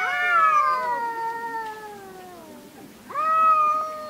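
Two domestic cats in a face-to-face standoff, caterwauling: a long drawn-out yowl that slowly falls in pitch and fades, then a second, steadier yowl starting about three seconds in.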